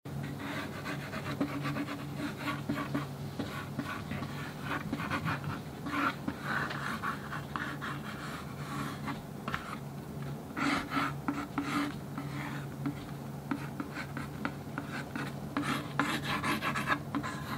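Mechanical pencil scratching across a shikishi art board in short, repeated sketching strokes, over a low steady hum.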